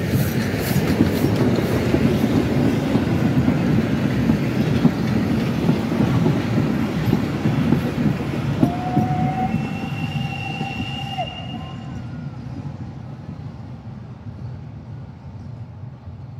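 Heritage train of old wooden passenger coaches rolling past, their wheels clattering over the rail joints, the sound fading as the train draws away. A steady high squeal sounds for about two and a half seconds a little past the middle.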